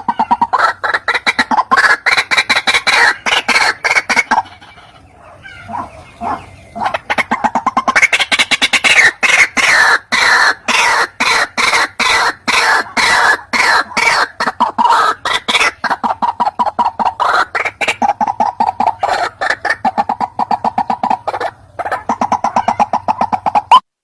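White-breasted waterhen (ruak-ruak) calling: a fast, dense series of repeated "kruak" notes. The calling breaks off briefly about five seconds in, then picks up again and runs on.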